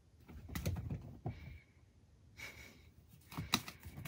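A cat's paws scrambling and landing on a soft mattress: clusters of soft thumps and scuffs in two bouts, the second as it leaps onto the bed. Short faint high chirps come now and then between them.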